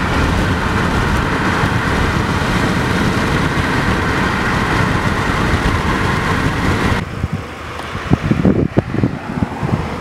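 Steady road and wind noise of a vehicle driving at speed, which about seven seconds in suddenly gives way to irregular gusts of wind buffeting the microphone.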